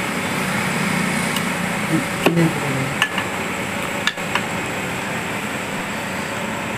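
A few light metallic clicks and knocks as a TVS Star motorcycle's crankshaft and its bearing are pressed by hand into the crankcase, over a steady background hum.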